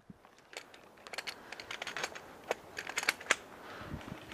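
Airsoft firefight: a dozen or more sharp, irregular clicks and ticks from BB fire and hits on the barricades.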